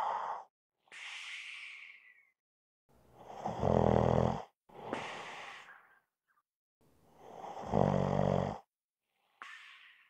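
A person snoring in a regular cycle about every four seconds. There are two full loud, low snores, each about a second and a half long, and each is followed by a softer, airy breath.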